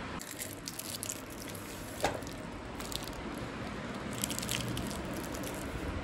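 Faint crinkling and crackling of a plastic toffee wrapper being handled, in short scattered bursts, with one sharper click about two seconds in.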